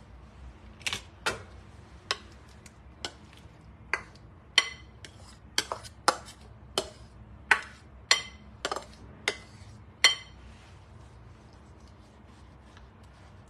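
A spatula knocking and scraping against a glass mixing bowl and a metal baking pan while oat batter is scraped out. Sharp clinks, some with a short ring, come irregularly about one or two a second, from about one second in until about ten seconds in.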